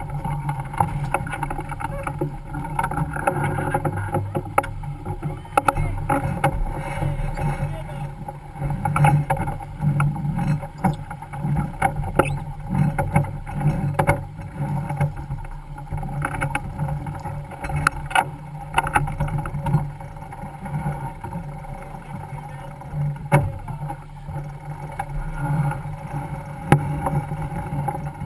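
Steady rush of wind and water past a sailboat's hull under spinnaker, with scattered sharp clicks and knocks from deck hardware and lines as the crew jibes the spinnaker.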